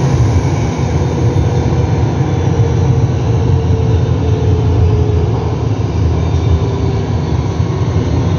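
Alstom Metropolis metro train running at speed through a tunnel: a steady, loud rumble of wheels on rail, with a faint whine that drifts slightly lower for a few seconds in the middle.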